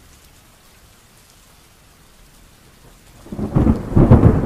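Thunderstorm: a faint, steady hiss of rain, then a loud crackling rumble of thunder breaking in about three seconds in.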